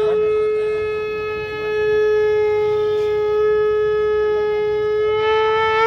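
Conch shell (shankh) blown in one long, steady note, its pitch lifting slightly near the end just before it cuts off.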